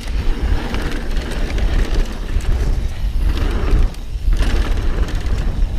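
Mountain bike descending a dirt trail at speed: tyres rumbling over the ground and the bike rattling over bumps, with wind buffeting the microphone. The sound dips briefly about four seconds in.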